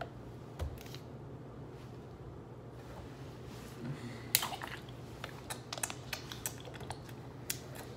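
Thin plastic water bottle being handled and drunk from: a loud sharp crackle of the plastic about four seconds in, then a run of short clicks and crinkles as the bottle is squeezed and turned.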